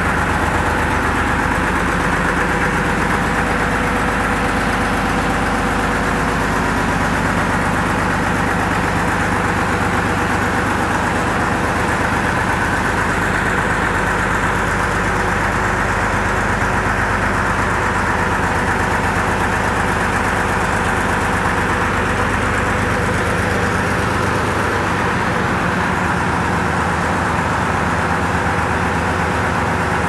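The engine of a homemade circular sawmill, fitted with two upright mufflers, running steadily under no load while it drives a large circular saw blade spinning free. This is the mill's first start-up.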